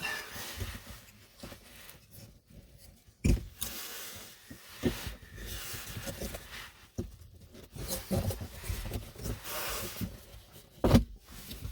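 Plastic dashboard trim panel being pried and worked loose, scraping and rubbing, with several sharp clicks, the loudest near the end, as its clips let go.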